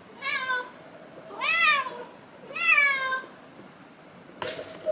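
A Shiba Inu whining three times, each a high whine that rises and falls in pitch, with a short knock near the end.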